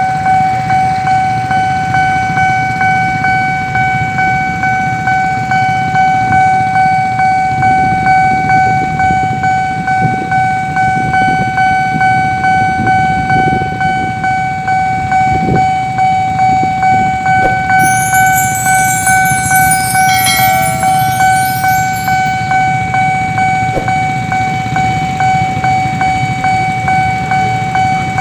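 A railroad crossing warning bell rings in quick, evenly repeated strokes on one steady pitch, over the low rumble of a train. About two-thirds of the way through, a brief high screech or hiss rises above it.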